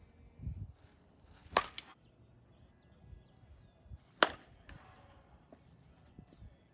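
Softball bat hitting softballs: two sharp cracks about two and a half seconds apart, the second the louder.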